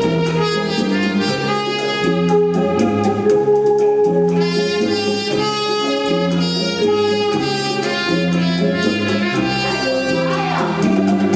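Rumba dance music: a melody with long held notes over a stepping bass line and light, regular percussion.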